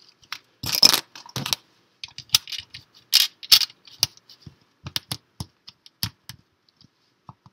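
Small LEGO plastic pieces clicking and tapping as they are handled and pressed onto a build, in an irregular run of sharp clicks, some in quick clusters, thinning out near the end.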